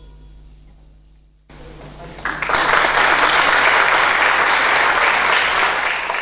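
The last notes of the music die away, then an audience starts applauding about a second and a half in. The applause swells to full strength a second later and holds, beginning to fade near the end.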